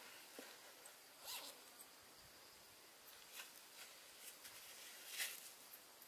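Faint handling sounds from a bag: a few short rasps and rustles, the loudest about five seconds in, over near silence.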